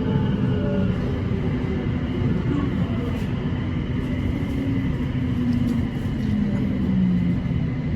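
BTS Silom Line electric skytrain running between stations: a steady rumble with motor tones drifting slowly in pitch.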